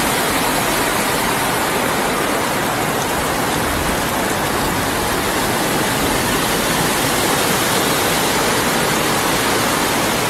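Floodwater rushing through a street as a loud, steady wash of noise that cuts off suddenly at the end.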